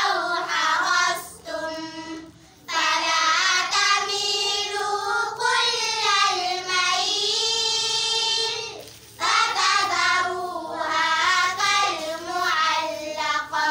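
Girls' voices chanting a melodic Qur'anic recitation (qira'at) together, in long held, wavering phrases with brief pauses for breath, one about two seconds in and another about nine seconds in.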